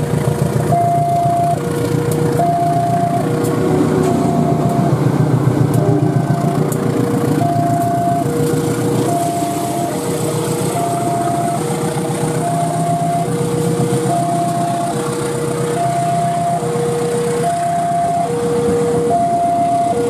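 Level-crossing warning alarm sounding two alternating tones, high then low, each lasting about three-quarters of a second, over the rumble of a passing diesel-hauled passenger train as its locomotive and then its coaches roll by.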